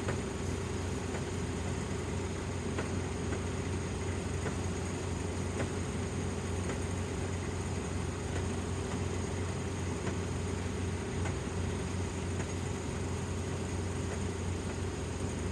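Dynamax 470 combine harvester running steadily, its engine and threshing machinery making an even, unchanging low hum.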